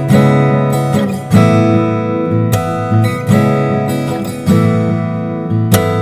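Background music: acoustic guitar strumming chords, a fresh strum about every second.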